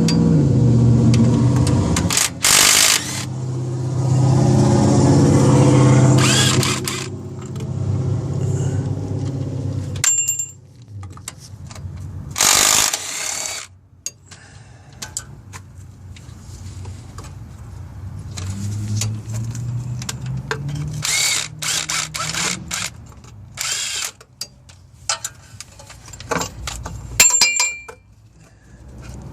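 A power tool runs in several short bursts, with clicks and knocks of tools and metal between them.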